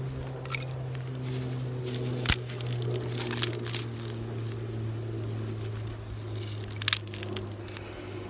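Dry grass and twigs rustling and crackling as they are handled and piled onto a fire lay, with a few sharp snaps or knocks, the loudest about two seconds in and near the end. A steady low hum runs underneath.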